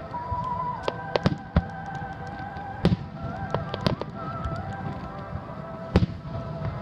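Aerial fireworks shells bursting overhead with sharp bangs at irregular intervals, the loudest about three seconds in and again near the end. Music with sustained, wavering notes plays along underneath.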